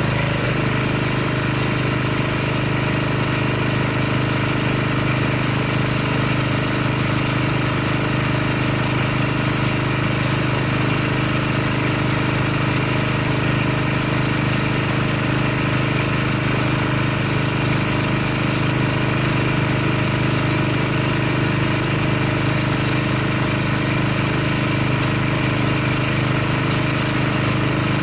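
Pressure washer running steadily with the hiss of its spray, rinsing a foam pre-wash off a car.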